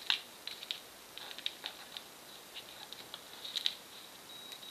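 Scissors snipping through duct tape: a quiet string of small, irregular snips and clicks.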